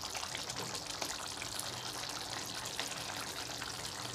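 Thick egg curry gravy simmering in a steel pot: a steady bubbling hiss with faint scattered pops.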